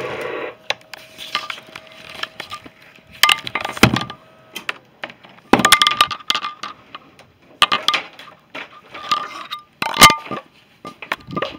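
Handling noise from the camera being picked up and moved: irregular knocks, clicks and rattles, with a few sharp loud clacks.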